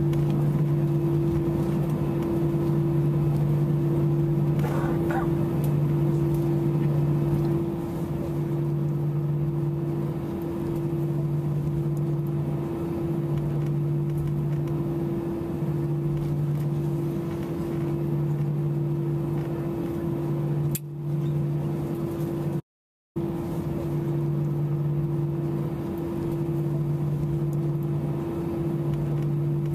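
Cabin noise of a Boeing 737 taxiing on its idling twin CFM56 engines: a steady hum, with a lower tone that pulses on and off about every two seconds. The sound drops out for a moment about two-thirds of the way through.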